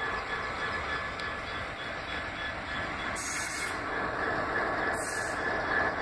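Freightliner Class 66 diesel locomotive passing close by, its two-stroke V12 engine running, with a thin steady high-pitched whine over the rumble.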